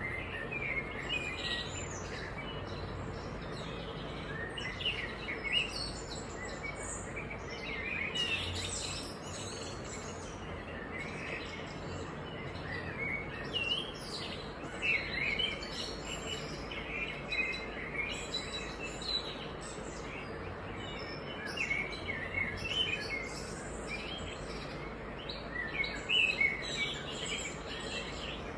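Birds chirping repeatedly in short, scattered calls, over a steady faint hum and background hiss.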